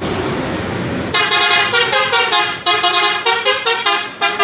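Telolet bus horn playing a tune of stepped multi-tone notes, starting about a second in after a short stretch of rushing noise.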